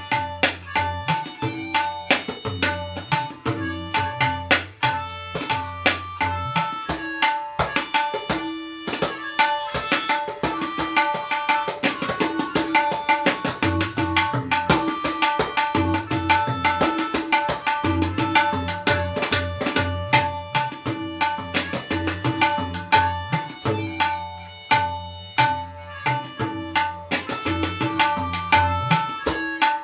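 Tabla solo in teentaal: rapid, dense strokes on the treble drum (dayan), ringing at its tuned pitch, over deep bass-drum (bayan) strokes. The bass strokes drop out for several seconds a quarter of the way through, leaving only the treble drum, and then come back.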